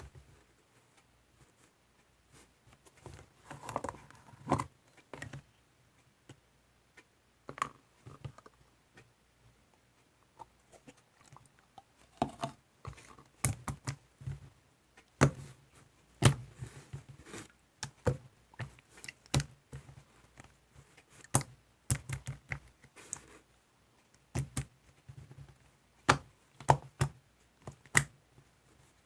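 Slime being pressed, squeezed and stretched by hand, making irregular sharp clicking pops and squishes with short quiet pauses between them.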